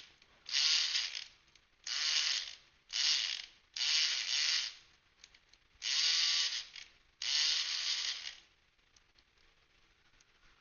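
Electric pick gun buzzing in a Kwikset deadbolt cylinder, run in seven short bursts of rattling, each about half a second to a second long, with the last one stopping near the end. The pick gun is hammering the pin stacks to jump them to the shear line while tension is held.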